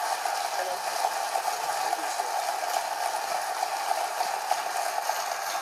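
Studio audience applauding, a steady dense clatter of many hands clapping, heard through a computer's speakers with no bass.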